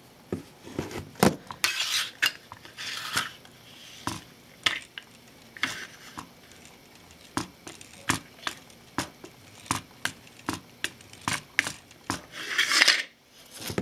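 Irregular plastic clicks and knocks as a small Lego Technic pendular-suspension axle is rolled over a plastic tape case on a wooden desk, its plastic parts clattering against the case and tabletop, with a few short scrapes.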